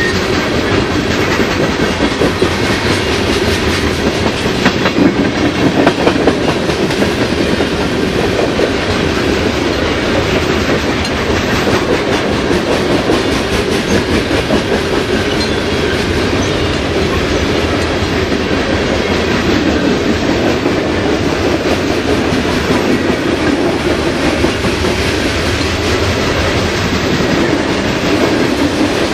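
Hopper cars of a Canadian Pacific coke train rolling past: a steady, loud rumble of freight wagons with the clickety-clack of wheels over rail joints, a little louder about five seconds in.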